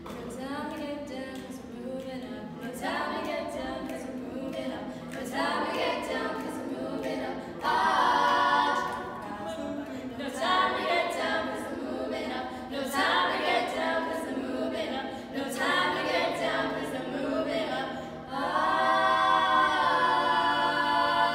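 Five-voice female a cappella group singing in close harmony over a steady low sustained note, with phrases swelling every couple of seconds. Near the end they open out into a long held chord.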